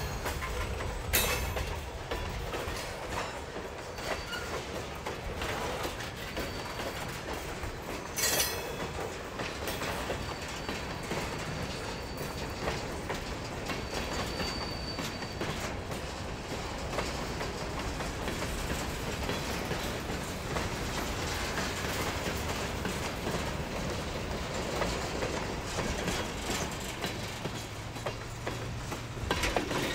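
A very heavy train's cars rolling past on century-old track, making a steady rumble with clickety-clack over the rail joints. There are sharp bangs about a second in and again about eight seconds in, and faint high squeals now and then.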